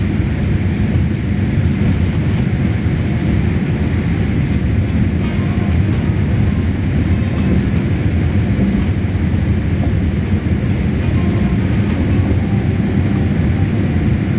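Steady low-pitched noise of a Boeing 787-8 Dreamliner in flight, its jet engines and rushing air heard from inside the passenger cabin, even and unchanging throughout.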